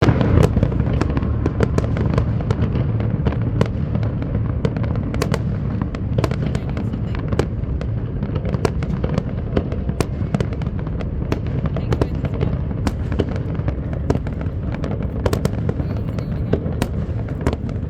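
Large fireworks display: a continuous low rumble of bursting shells, with many sharp cracks and bangs at irregular intervals.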